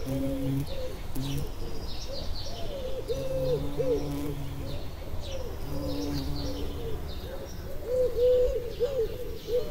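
Pigeons or doves cooing in repeated runs of several low notes, with small songbirds giving short, high chirps over them.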